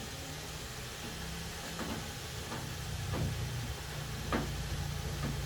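Steady low machine hum, with a few faint short knocks over it.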